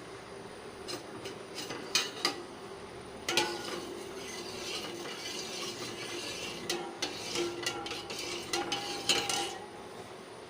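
Coconut milk being stirred in a pan as it heats on the stove: the stirring utensil scrapes and clinks against the pan in irregular knocks, some briefly ringing.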